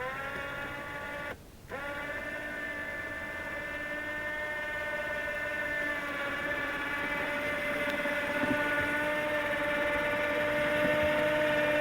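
Small electric motor whining at a steady pitch. It spins up, cuts out for a moment about a second and a half in, then spins back up and runs on, growing slightly louder.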